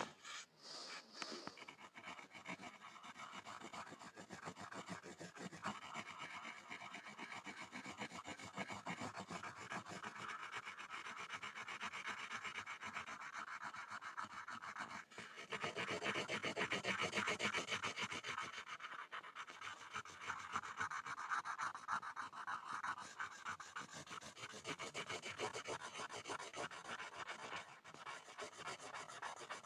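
Graphite pencil scribbling on a board: a continuous dense scratching and rubbing, louder for a few seconds a little past halfway.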